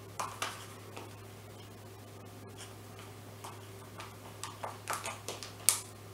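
A utensil scraping and clicking against a small container of crumbled feta cheese as it is scooped out and spooned onto salad plates: scattered short clicks and scrapes, a couple about a second in and a quicker run near the end, the last one the sharpest.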